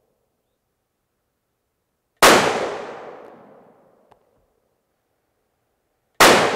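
Two shots from a Remington 700 BDL Varmint Special in .223, about four seconds apart, each a sharp crack that rings off in a long echo.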